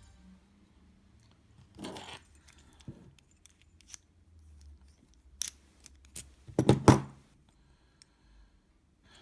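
Scattered metallic clicks and short clatters from a stainless steel padlock and lock-picking tools being handled, loudest in a cluster about seven seconds in.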